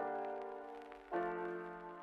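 Background music: sustained chords, a new one struck about once a second and fading away before the next.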